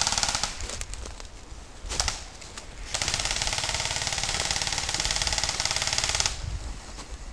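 Airsoft gun firing on full auto: a burst running on at the start, a short burst about two seconds in, and a long burst of about three seconds starting around three seconds in.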